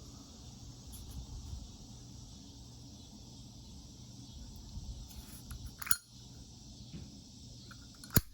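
Two sharp clicks, about six seconds in and again near the end, over a faint steady background hum: small metal objects, the patinated lighters, being handled.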